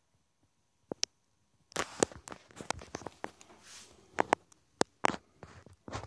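Camera handling noise: after about a second of near silence, a run of irregular clicks, taps and short rustles as a hand-held phone camera is moved and gripped.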